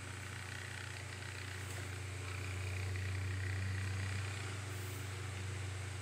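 Hawaiian Breeze 9-inch table fan running on low speed: a steady motor hum with the soft rush of its blades.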